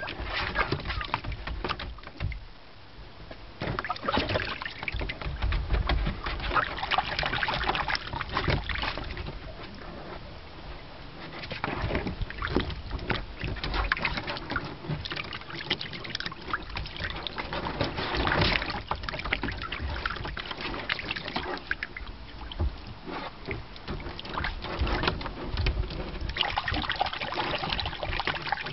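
Shallow water in a plastic kids' wading pool splashing and sloshing irregularly as small puppies paddle and wade through it.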